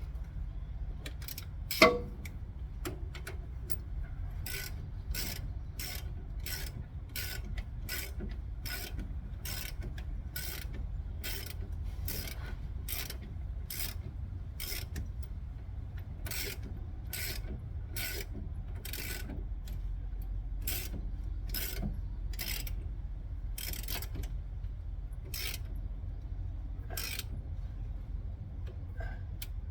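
Socket ratchet wrench clicking in a steady rhythm, about one and a half clicks a second, as the steering stabilizer shock's mounting nut is run down and tightened; a single sharp knock about two seconds in.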